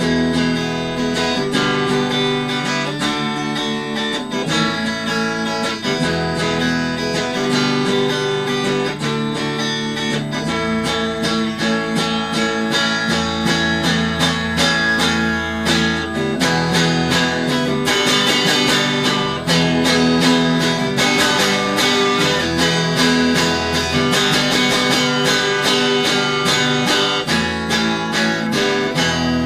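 Instrumental desert/ambient rock guitar music: a Squier Affinity Stratocaster played through a Fender Frontman 15G amp, strummed and picked continuously, with ringing chords over steady low bass notes.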